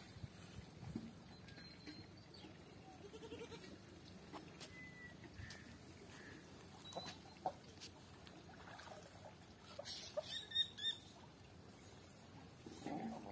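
Faint outdoor background with scattered short animal calls. The loudest is a quick run of three short high notes about ten seconds in.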